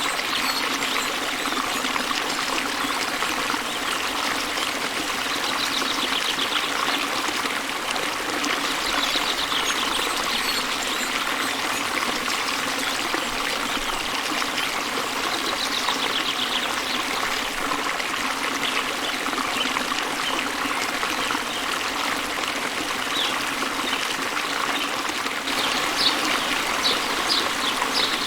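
Small waterfall and river flowing, a steady rush and trickle of water. Birds sing over it in short trills several times, with a run of quick chirps near the end.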